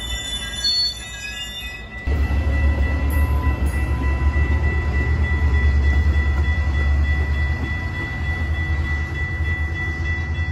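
Metra bilevel commuter cars rolling away along the track, with a steady high-pitched whine throughout. About two seconds in, a loud low rumble comes in suddenly and holds.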